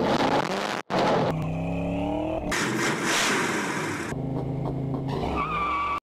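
Car engine revving up in short cut-together clips. A high wavering squeal near the end is tyres squealing, and the sound stops abruptly.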